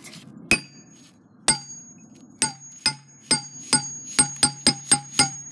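A hammer striking the glass bottle of a lava lamp about a dozen times, each blow giving a short clear ring. The blows come faster toward the end, and the hard glass holds against them.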